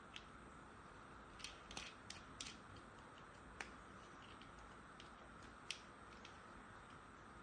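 Faint, scattered clicks and light taps, about eight in all, of plastic toy tool pieces being handled, over a steady low hiss. A small cluster falls between one and a half and two and a half seconds in, with single sharper clicks later on.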